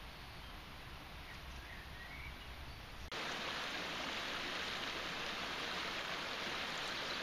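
Quiet background for about three seconds, then the steady rush of a shallow stream running over rocks starts suddenly and carries on.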